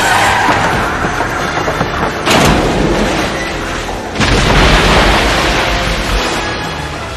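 Film sound effects of a destructive crash: two heavy booming impacts about two seconds apart, the first about two seconds in and the second about four seconds in, each with a long deep rumbling tail that slowly fades.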